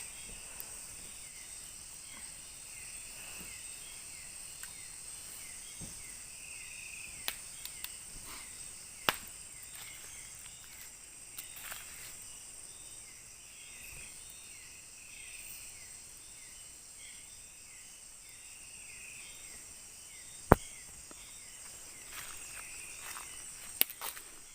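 Forest insect chorus: a steady high-pitched drone with a string of short repeated chirping calls beneath it. A few sharp clicks or knocks cut through it, the loudest about twenty seconds in.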